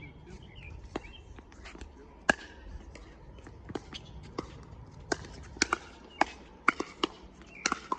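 Pickleball rally: sharp hollow paddle strikes and ball bounces, a few scattered at first, then coming quicker and louder in the second half, with footsteps on the court.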